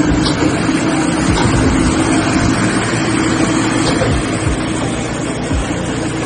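Diesel-engined concrete pump running while pumping: a steady engine drone with low thuds recurring about every second.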